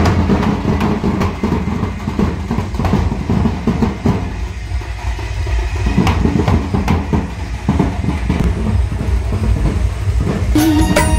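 Loud street-procession din: a heavy, continuous low rumble with scattered sharp cracks. Near the end a Bollywood song with singing starts up.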